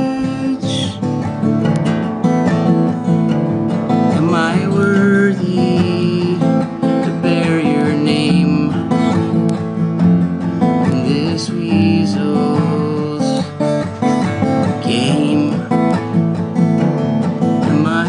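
Alvarez acoustic guitar played in a steady strummed rhythm, with a man singing a song over it in phrases that come and go.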